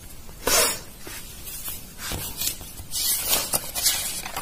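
Hand rubbing and handling the paper pages of a sketchbook: a sharp swish about half a second in, then a longer stretch of rustling.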